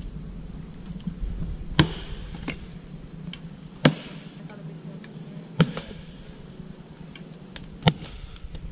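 Axe chopping into a fallen mangrove log: four sharp strikes, about two seconds apart.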